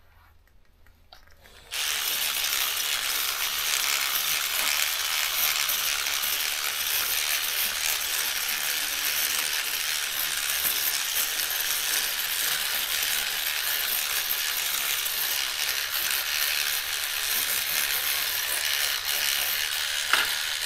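Electric cleaning brush running and scrubbing soap lather over a typewriter keyboard. It starts about two seconds in and then runs steadily.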